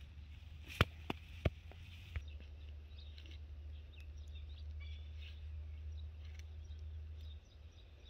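A spade digging into dry, clumpy soil, with a few sharp knocks and scrapes in the first two seconds. After that there is a steady low rumble of outdoor noise with scattered faint chirps, and the rumble stops abruptly near the end.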